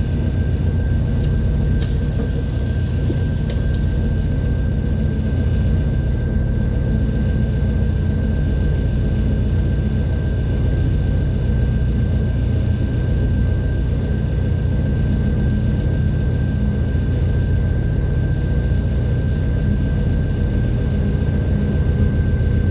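Steady low rumble of a train in motion, heard from on board, with a thin steady high tone running through it and a brief hiss about two seconds in.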